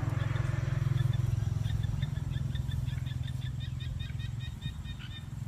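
A small motor running steadily with a low, even hum, and from about two seconds in a rapid run of short, high chirps above it.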